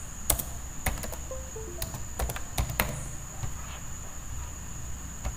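Computer keyboard keys pressed one at a time: a handful of separate clicks as a word is typed. A steady faint high whine runs under it, and a short run of faint falling tones sounds about a second and a half in.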